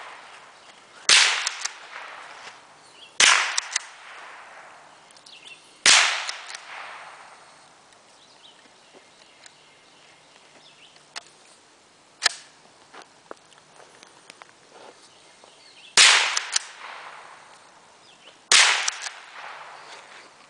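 An old .22 rifle fired five times, each sharp crack trailing off in a short fading echo. Three shots come about two to three seconds apart, then there is a long pause broken by one brief sharp click, then two more shots close together near the end.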